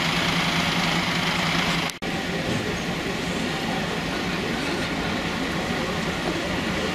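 Idling vehicle engines, a steady drone with a low hum. About two seconds in it drops out for an instant, and a steady engine noise without the hum carries on.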